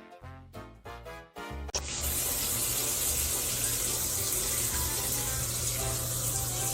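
Light music for the first second and a half, then a sudden cut to steady rushing water, like a tap running into a sink, with a low hum and faint music under it.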